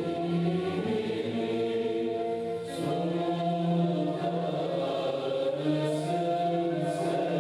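A choir singing classical Turkish music, voices holding long notes that move from pitch to pitch.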